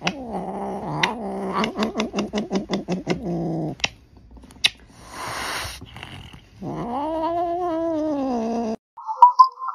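Domestic cat yowling in long, drawn-out growling calls, with a brief hiss in the middle. A second long yowl rises and falls in pitch and cuts off suddenly near the end.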